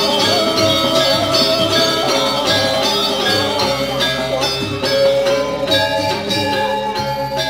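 Balinese gong kebyar gamelan playing music for a legong dance: bronze metallophones ringing with many quick strikes in dense layered patterns.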